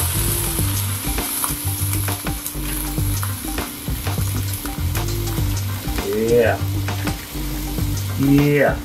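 Marinated chicken breast sizzling as it lands on the preheated grill grate of a Ninja Foodi indoor grill, with sharp clicks of metal tongs against the grate.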